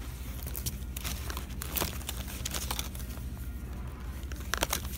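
Handling noise: scattered clicks and rustles as hands rummage through a bin of foam squishy toys with card tags, close to the microphone, over a steady low hum.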